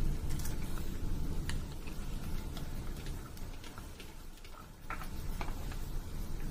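Soaked sago pearls being added by hand to a pot of hot milk on a gas stove: scattered light clicks and taps at irregular times over a steady low rumble from the burners and the simmering milk and jaggery syrup.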